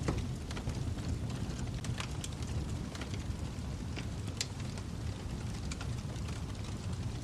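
Wood fire burning in a fireplace: a steady low rumble of flames with irregular crackles and small pops, one sharper pop a little past halfway.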